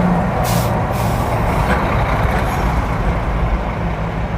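Highway cabin noise inside a Ford Bronco Raptor at about 90 km/h with a window a quarter open: steady wind rush over a low road and engine drone, with a brief louder hiss a little under a second in.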